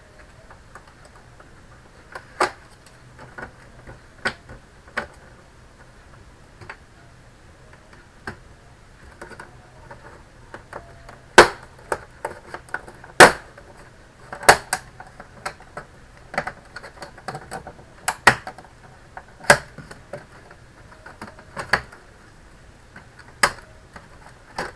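Irregular sharp clicks and knocks of plastic case parts and tools being handled as an all-in-one PC is taken apart, the two loudest knocks about halfway through.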